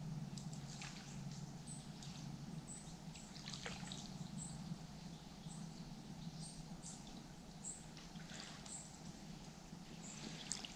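Faint river water trickling and lapping, with a high bird call repeating about once a second.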